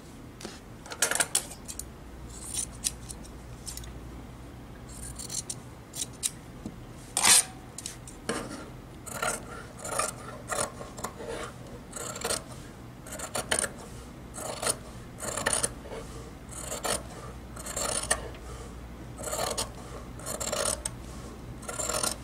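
Fabric scissors snipping through white blouse cotton, trimming a seam allowance down to 0.5 cm. A few scattered strokes and fabric handling come first, then from about eight seconds in a steady run of snips, a little more than one a second.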